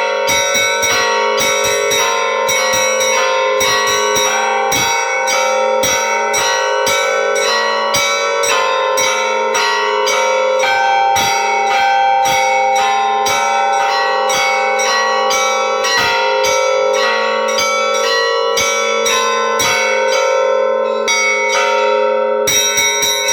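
Church bells ringing: quick repeated strikes of smaller bells, several a second, over the steady ring of larger bells.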